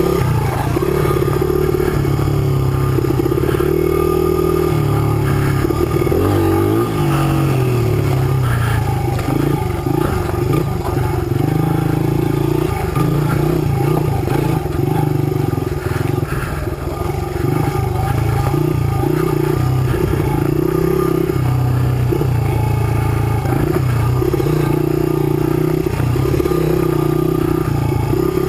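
Small single-cylinder four-stroke dirt-bike engine, a 2005 Honda CRF100, running as it is ridden over rocky trail, its pitch rising and falling with the throttle.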